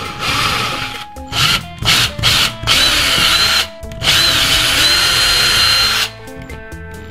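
Ryobi cordless drill boring into a door: several short bursts of the trigger, then a longer run of about two seconds near the middle, the motor whine rising in pitch as it speeds up.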